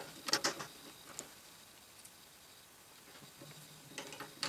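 Scattered light clicks and taps of a screwdriver and screws fastening a front-panel module into a PC case's drive bay: a few in the first second, a lull, then more near the end.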